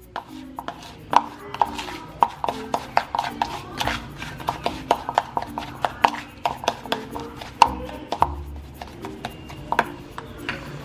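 Metal spoon stirring and pressing crushed Oreo crumbs with melted butter in a plastic bowl: a quick, uneven run of scrapes and taps of the spoon against the bowl.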